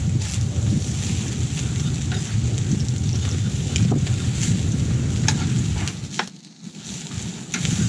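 Köfte and halved tomatoes grilling over a charcoal mangal, sizzling with scattered crackles and pops over a steady low rumble that drops away briefly about six seconds in.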